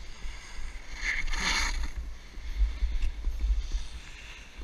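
Wind buffeting the helmet camera's microphone while snowboarding downhill, with the board's edge scraping and hissing over packed snow, loudest in a swish about a second in.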